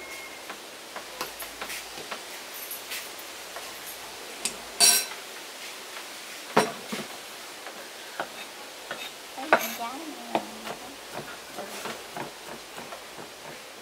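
Kitchen utensils clinking, knocking and scraping against pots and dishes, with a few louder clatters, over a steady hiss.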